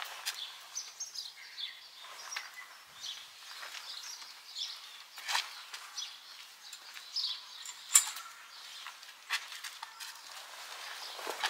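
Birds chirping, with scattered sharp clicks and knocks, the loudest about eight seconds in.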